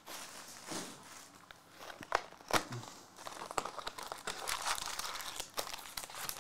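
Crinkling and tearing of plastic wrapping as a trading-card box and its packs are opened by hand, with a few sharp clicks and snaps along the way.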